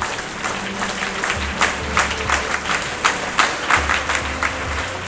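An assembly of schoolchildren applauding, many hands clapping at once; the clapping swells in the middle and thins out near the end.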